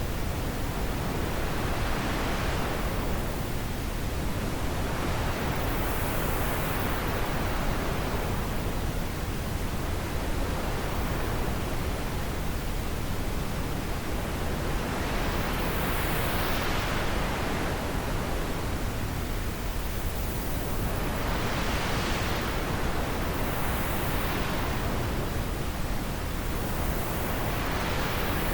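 Wind blowing steadily as a continuous rushing hiss that swells and eases about every six seconds, its pitch rising and falling with each gust.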